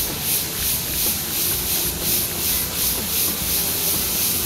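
Chorus of insects buzzing outdoors: a loud, high-pitched hiss that pulses about three times a second.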